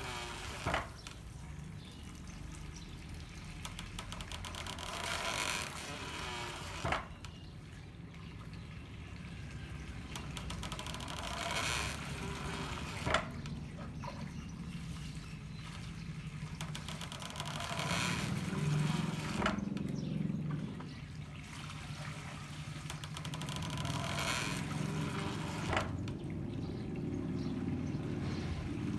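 Handmade water-powered corn mill working: water pours and spills out in a swell, then the pounding arm comes down with a sharp knock, about once every six seconds, five times. Running water trickles steadily in between.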